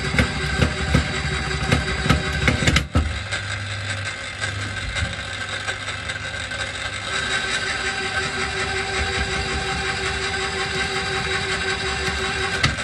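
Electric cable-stripping machine running as single-core aluminium-armoured cable goes through it: a rapid clatter of knocks for about the first three seconds, a sudden break, then a steady motor and gear hum.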